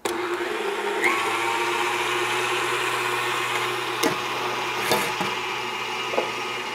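KitchenAid tilt-head stand mixer running steadily, its whisk beating heavy cream with sugar and vanilla toward firm peaks; the motor hum climbs and settles at a higher speed about a second in. Two light clicks sound over it near the middle.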